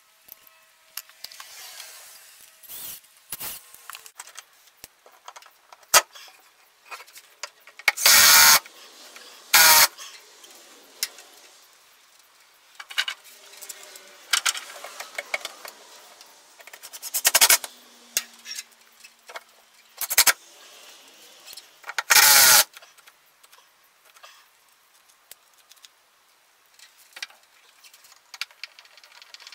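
Hand-work noises from handling a screwdriver and a slim metal LED light fixture while fastening it up to a wooden ceiling joist: scattered clicks and small metallic rattles, with about half a dozen loud, short knocks.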